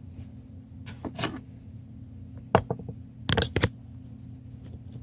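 Small metal pocket items clinking and knocking as they are handled and set down on a hard surface: a few separate sharp clicks, with the loudest cluster a little past the middle. A steady low hum runs underneath.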